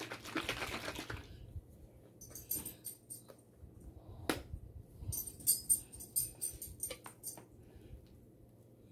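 A plastic squeeze bottle of sauce being handled and squeezed out. A soft rustle comes first, then a sharp click about four seconds in, then crackly, sputtering spurts as the sauce squirts out with air.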